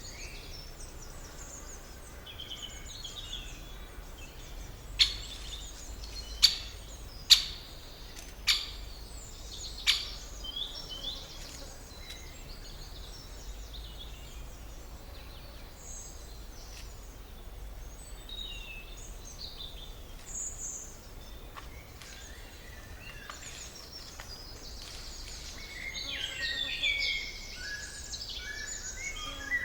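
Forest ambience of several birds chirping and singing over a faint low rumble. Five sharp, loud snaps come between about five and ten seconds in, and the birdsong grows busier near the end.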